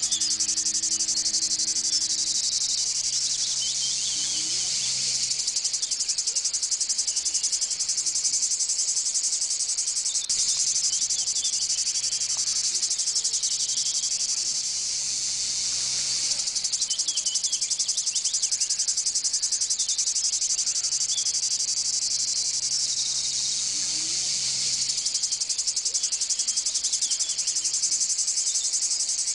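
A loud, steady insect chorus with a fast, even pulse, with a few bird chirps over it. A faint low drone comes and goes underneath.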